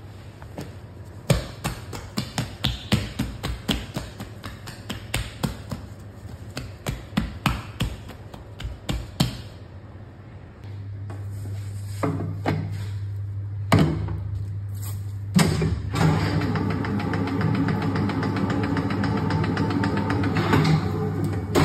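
Gloved hands patting and pressing a disc of dough into a plastic divider plate, a quick run of soft slaps and taps. About halfway a dough divider-rounder's motor starts humming, with a few heavy clunks of the machine's head and lever. Then it runs with a steady mechanical drone as it divides and rounds the dough.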